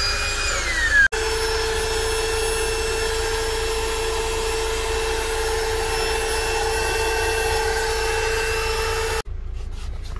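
Electric air inflator motor running with a steady whine as it blows up an air mattress. Its pitch sags just before a break about a second in, then it holds one steady tone until it cuts off abruptly near the end.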